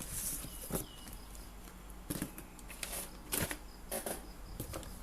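Scattered rustles and light clicks of a speaker box and its packaging being handled, with a few sharper taps about a second, two seconds and three and a half seconds in.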